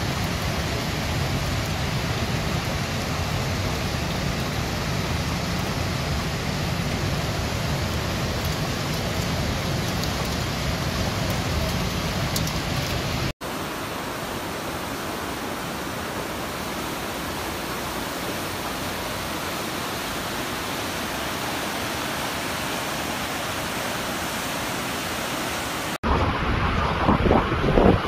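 Heavy typhoon rain as a steady, even hiss. It changes suddenly about halfway through and again near the end, where louder, gusting wind buffets the microphone for the last two seconds.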